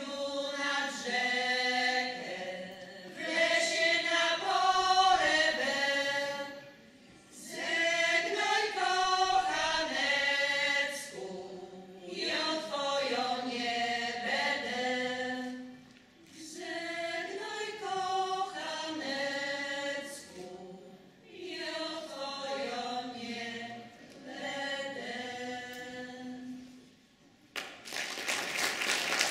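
Polish women's folk singing group singing a cappella in unison, in long phrases with short breaks between them. Audience applause breaks out near the end as the song finishes.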